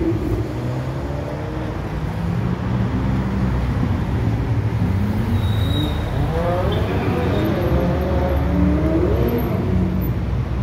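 Ferraris and other cars driving past in slow parade traffic with a steady low engine rumble. In the second half, engine notes rise and fall as cars pull away.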